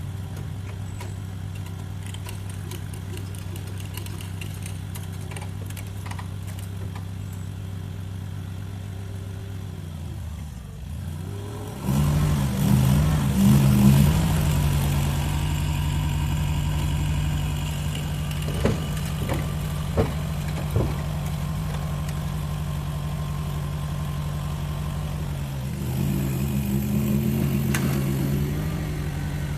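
Mini skid steer's small engine running steadily, then about a third of the way in it dips and comes back louder at a higher speed, revving up twice. A few short knocks come along the way.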